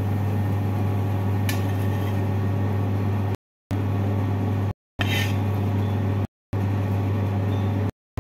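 Steady low machine hum, like a kitchen fan or appliance running, with two light clinks of a steel spoon against a steel serving dish, about one and a half seconds in and again about five seconds in. The sound cuts out to dead silence several times in the second half.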